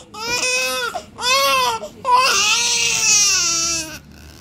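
Newborn baby crying in three long wails, each breaking off for a breath. He has just had a small procedure on the underside of his tongue.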